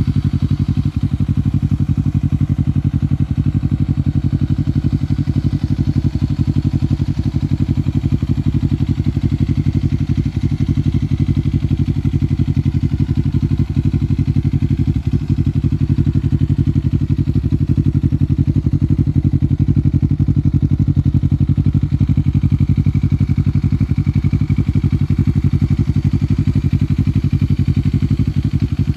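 Bristol Bobber 650 motorcycle's engine idling steadily through its exhaust, a deep even pulsing with no revs.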